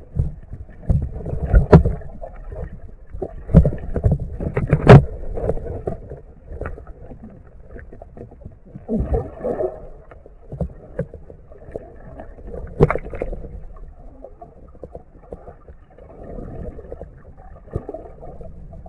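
Muffled underwater noise picked up by a submerged camera, with scattered knocks and clicks, the loudest about five seconds in and again about thirteen seconds in.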